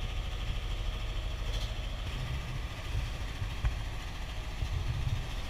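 Engine of a wooden river boat running steadily under way, a low even rumble, with one short sharp knock about three and a half seconds in.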